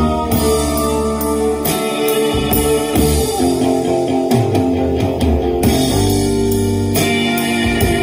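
Blues-rock song with electric guitar, bass and drums playing loudly through a Harley-Davidson touring bike's fairing speakers and Cicada Audio amplifier, an untuned system with the low-pass set at 100 Hz.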